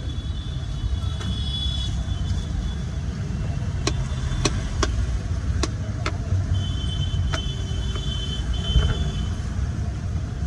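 Steady street-traffic rumble, with a knife striking a cutting board in sharp clicks about six times in the middle of the stretch as it cuts slices from a peeled muskmelon.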